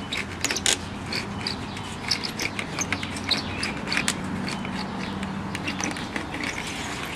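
A screen roller being run along the frame channel, pressing metal window screening into the groove: a stream of small irregular clicks and light scraping, with short high chirps here and there over a faint steady low hum.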